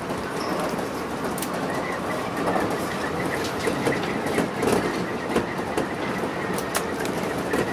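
Electric commuter train running on the rails, heard from inside the front car: a steady rumble with wheels clicking over rail joints and a faint steady high whine.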